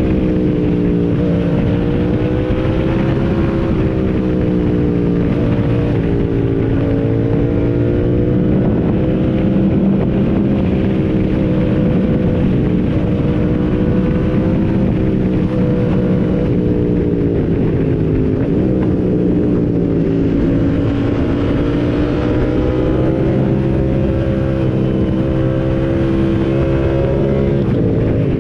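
Motorcycle engine running at a steady, fairly constant speed while being ridden, its pitch drifting gently up and down with small throttle changes.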